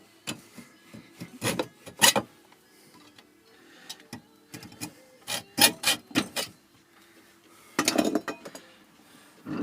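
A thermostatic radiator valve head being worked apart by hand: several short bouts of scraping, rubbing and sharp clicks from its parts and the tool, with pauses between them.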